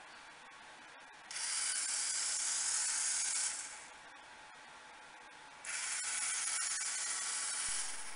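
Small geared DC drive motors of a FireBird V robot whirring as its wheels turn, with the left motor on reduced PWM speed. They run in spells of about two seconds with about two seconds of stillness between: one spell starts about a second in and stops about three and a half seconds in, and the next starts near six seconds in.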